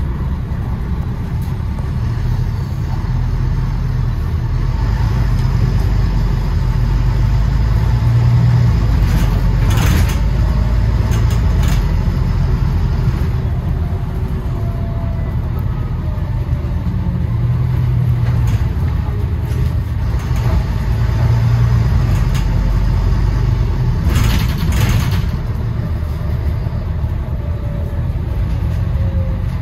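London bus running, its engine rumbling low and steadily, swelling and easing as it pulls away and slows, with a faint rising and falling whine. A brief sharp noise about a third of the way in, and another lasting about a second two-thirds of the way through.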